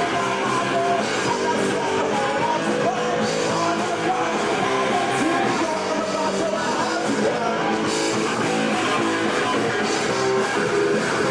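Punk rock band playing live: electric guitars strummed over bass and drums, with a voice singing at times.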